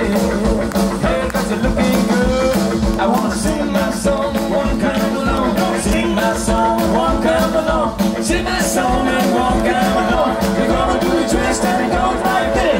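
Live rock and roll band playing with upright bass, drum kit and electric guitar, driven by a steady drum beat.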